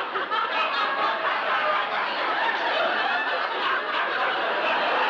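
Studio audience laughing steadily, many voices at once.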